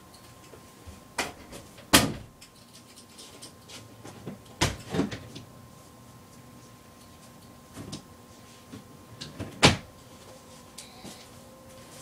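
A handful of separate sharp knocks and clunks of gear being handled, the loudest about two seconds in and again near ten seconds, over a faint steady hum.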